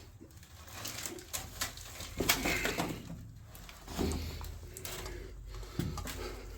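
Footsteps and shuffling on old wooden decking boards, with irregular knocks, creaks and scrapes in a small enclosed room; the busiest stretch comes about two seconds in, with further thumps about four and six seconds in.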